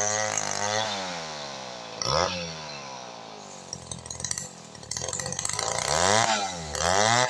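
Two-stroke chainsaw engine running at high speed, then throttled back to a low idle about a second in. It is revved briefly once about two seconds in, then revved up and let down twice near the end.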